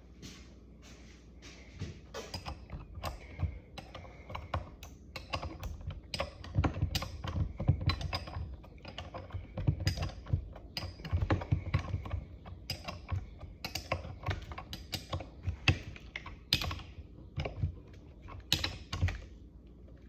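Hand tools clicking and clacking in quick, irregular runs, with a few low knocks. This is metal tool work on the king pin lock bolt.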